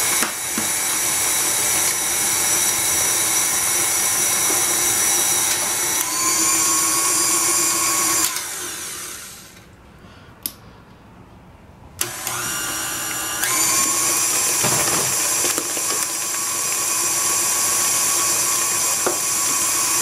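KitchenAid Classic stand mixer's motor running with its paddle, creaming a cream-cheese cheesecake batter as eggs go in, with a steady whine. The motor runs down and stops about eight seconds in. It starts again suddenly about twelve seconds in and steps up in speed a second or so later.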